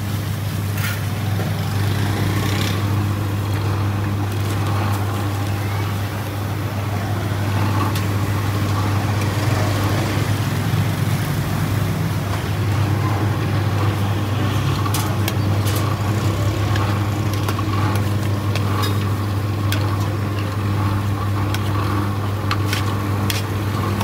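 A steady, loud low hum throughout, with sharp clicks and knocks that grow frequent in the second half.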